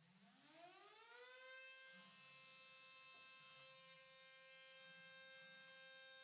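Spindle motor of a desktop PCB-milling CNC machine spinning up: a faint whine that rises quickly in pitch, then settles into a steady high whine about a second and a half in as the trace-isolation milling begins. A faint lower hum joins about two seconds in.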